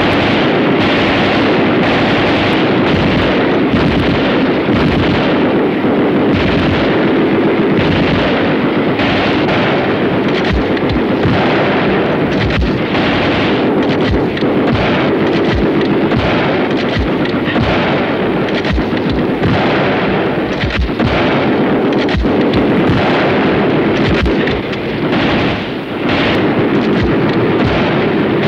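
Battle sound: dense, unbroken gunfire mixed with explosions, including rapid machine-gun fire, easing briefly about 25 seconds in.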